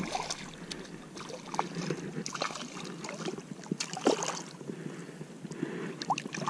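A hooked fish thrashing and splashing at the water's surface as it is reeled in, a string of short irregular splashes over a steady wash of wind and water.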